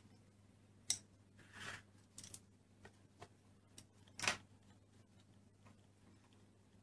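Scattered light clicks and taps of plastic Play-Doh moulds and tools being handled, with a brief rustle about a second and a half in and a sharper knock a little after four seconds.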